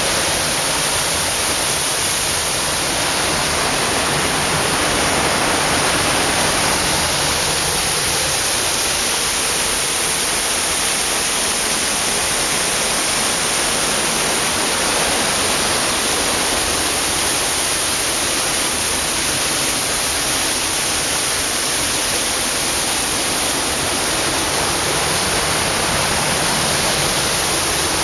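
Small waterfall pouring over rocks into a pool: a steady, unbroken rush of water.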